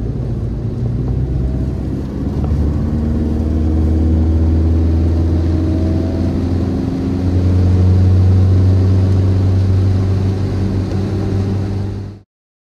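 Classic BMW saloon's engine and road noise heard from inside the cabin while driving. The engine note rises in pitch as the car picks up speed, then settles into a steady, louder cruise. The sound cuts off suddenly near the end.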